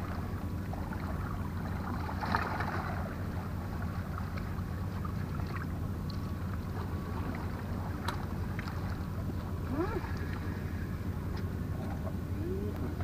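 Steady low drone of distant boat engines over the harbour water, with a brief rustle about two seconds in, a few light clicks, and two short rising squeaks near the end.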